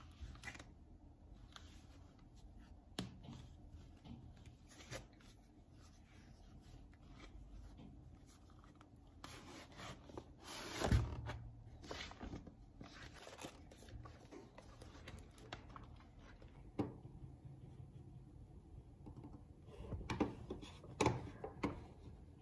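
Paper rustling and soft handling noises from a thick paperback exam-question book being held and flipped through, loudest about halfway. A few sharper taps and rustles follow near the end.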